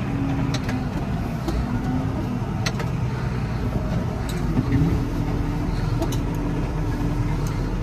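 Farm vehicle's engine running steadily while driving a load along a driveway, with a few light clicks and rattles.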